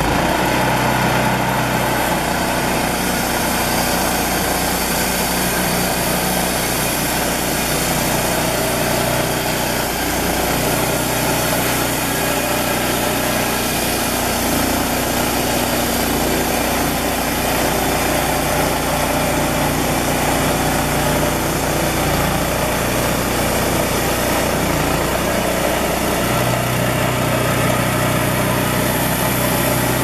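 Wood-Mizer LT10 band sawmill's engine running steadily as the band blade cuts along a log, the engine note shifting a few times under the changing load.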